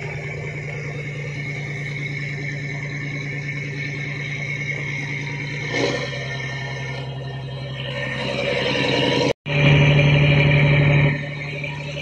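The towing fishing boat's inboard engine running steadily at a constant pitch while it pulls a disabled trawler on a tow rope. The sound cuts out for a moment about nine seconds in, then comes back louder for about a second and a half before settling again.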